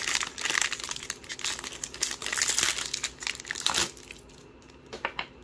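Foil booster pack wrapper crinkling as it is handled and opened, dense crackling for about four seconds, then quieter with a few light clicks near the end.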